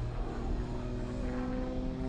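Rock music with held electric guitar notes, over a faint low engine drone that fades out early on.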